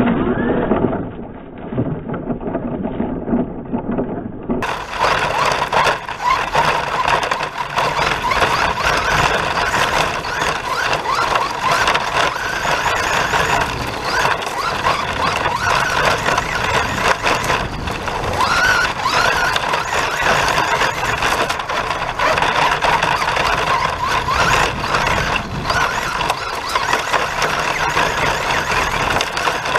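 Traxxas Rustler R/C car driving over dirt, heard from a camera mounted on the car: its motor whines up and down with the throttle, over steady rattling from the tyres and chassis.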